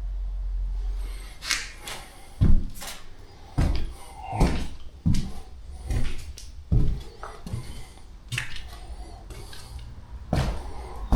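Footsteps on a hard floor in an empty room, about one thud a second, with scrapes and light knocks between them.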